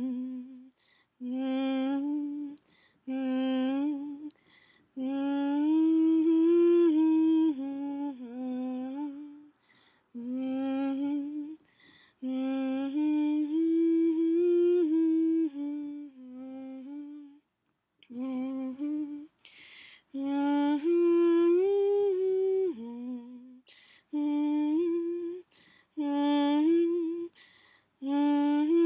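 A person humming a wordless original tune, in phrases of one to three seconds separated by short breaks.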